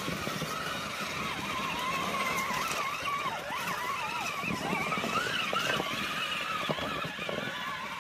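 Electric motors of radio-controlled monster trucks whining, their pitch wavering up and down with the throttle, as the trucks drive through a shallow rocky creek. The whine runs over splashing water and the tyres crunching over stones, with a few knocks.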